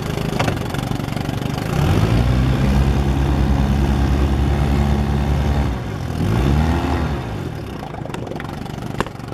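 1957 Johnson Sea-Horse 18 hp outboard, a two-cylinder two-stroke, running under way on the boat. Its revs rise about two seconds in and hold steady, drop near six seconds, blip up and back down once, then settle lower. A single sharp click comes near the end.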